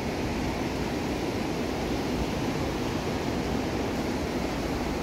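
Steady wash of ocean surf breaking on a sandy beach, with wind rumbling on the microphone.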